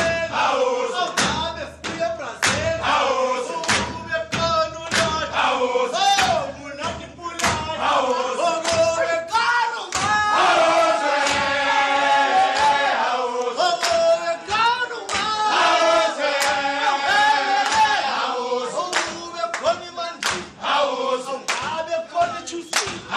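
A group of men singing together in chorus, a pre-match team song, over a steady beat of sharp hits keeping time.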